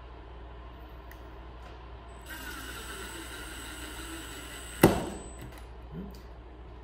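Cordless drill driving a wood screw into a wooden block: the motor whines steadily for about two and a half seconds, starting a little after two seconds in, and stops with one sharp loud click.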